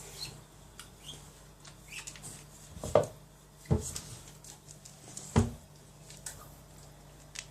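Dog nosing at its porridge bowl on the floor: small squeaks and scrapes of its nose against the floor, and three sharp knocks of the bowl, about three seconds in, a moment later, and near five and a half seconds.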